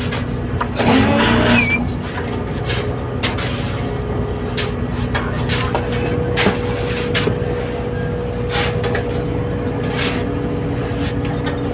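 Fishing boat's engine running steadily, with irregular short scrapes and knocks of shovels working crushed ice in the fish hold. A brief louder burst stands out about a second in.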